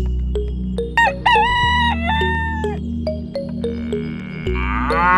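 A rooster crowing once about a second in, over steady background music with a regular ticking beat; near the end another farm-animal call begins.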